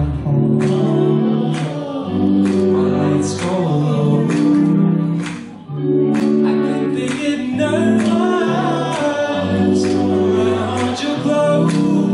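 Live pop band playing with singing, drums keeping an even beat of about two hits a second over guitar and keyboard. The music dips briefly about six seconds in.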